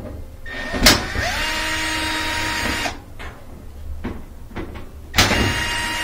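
Cordless drill/driver backing out two Phillips-head screws from a dryer's lint-filter housing. The motor starts with a sharp click and a short rise in pitch, runs steadily for about two and a half seconds, then stops. It starts again about five seconds in.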